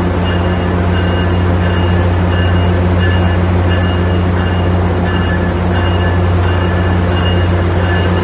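Amtrak Acela Express electric power car rolling slowly alongside the platform with a loud, steady low hum, while its bell rings over and over.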